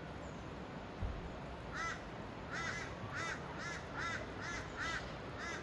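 A bird calling over and over, about eight short calls roughly half a second apart, starting about two seconds in, over a steady low rumble of background noise. A single thump comes about a second in.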